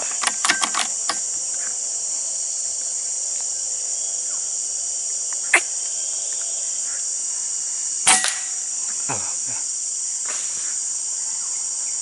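A steady, high-pitched insect drone, with a few quick clicks at the start and two sharp cracks, one about five and a half seconds in and a louder one just after eight seconds, from air-rifle shooting at a squirrel.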